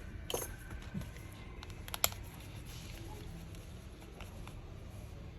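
A few light clicks and taps of a small screwdriver and tiny screws being handled while a smartphone is taken apart, the sharpest click about two seconds in.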